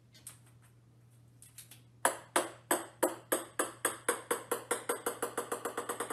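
A small ball bouncing on a hard wooden floor. About two seconds in, a string of ringing taps starts, coming ever faster and quieter as the ball settles.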